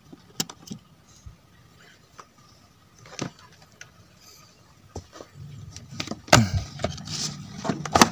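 Small clicks and handling noise as the wires and connectors on an active speaker's amplifier board are worked by hand. About five seconds in a low hum joins, followed by louder rattling and clattering as a handheld analog multimeter is picked up and set down.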